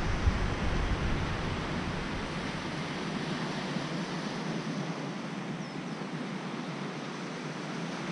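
Steady wash of surf on a sandy beach, an even hiss with no distinct events, with a low wind rumble on the microphone through the first few seconds.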